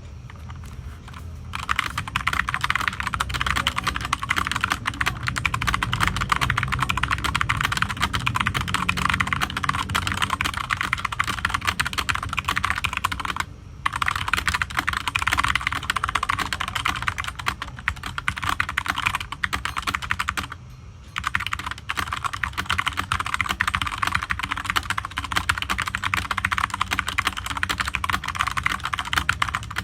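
Fast typing on a Keychron K4 mechanical keyboard with brown switches: a dense, continuous stream of key clicks. It starts about a second and a half in and pauses briefly twice, once near the middle and once about two-thirds through.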